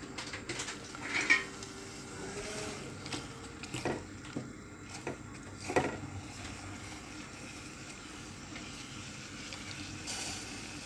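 A ladle stirring roselle leaves in a metal saucepan of water coming to the boil, with a few sharp knocks and scrapes against the pot. Under them runs a steady low hiss of the heating water.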